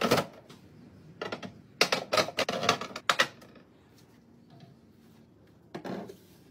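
Items being set down and arranged while restocking a fridge: sharp clacks and taps, a quick run of them in the middle, then a single knock near the end.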